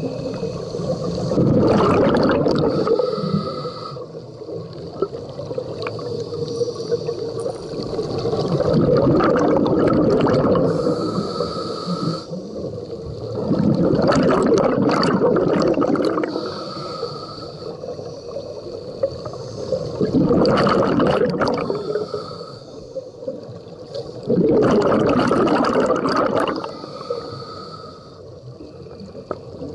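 Scuba diver breathing through a regulator underwater: a hissing inhale, then a long gurgling rush of exhaled bubbles, repeating about every six seconds, five exhales in all.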